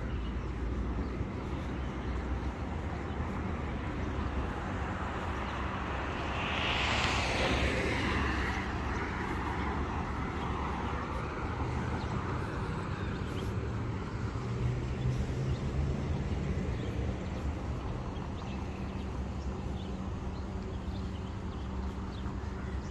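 Road traffic beside a footpath: a steady low rumble, with one car passing on the road, swelling and fading between about six and ten seconds in.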